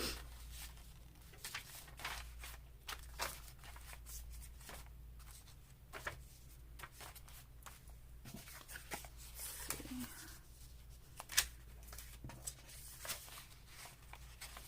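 Paper being handled and folded on a work surface: scattered light rustles, crinkles and small taps, with one sharper tap a little past the middle, over a steady low hum.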